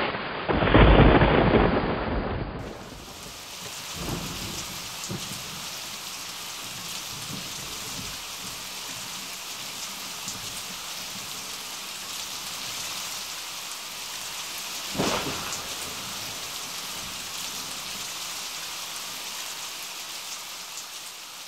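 Thunderstorm: a loud clap of thunder rumbling for about two seconds at the start, then steady rain, with a fainter thump a few seconds later and a shorter thunderclap about fifteen seconds in.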